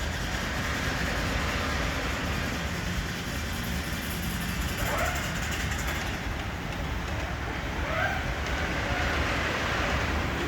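Ride-on miniature train running on its track with a steady low rumble, and two short rising squeaks about five and eight seconds in.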